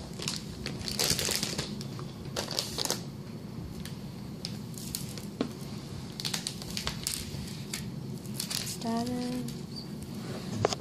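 Crinkly rustling and handling noises close to the microphone, a string of short scrapes and taps, with a brief pitched tone about nine seconds in and a sharp click near the end.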